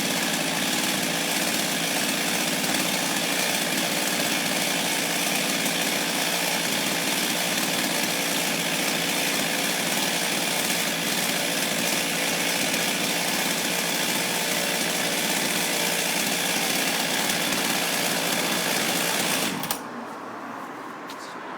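Husqvarna 246XPG two-stroke chainsaw engine running steadily at an even pitch, then stopping suddenly near the end.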